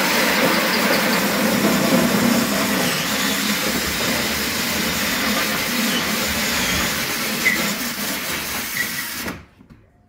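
Cordless drill running a 6-inch hole saw in reverse, grinding up through 5/8-inch drywall ceiling. It cuts steadily and stops suddenly about nine seconds in.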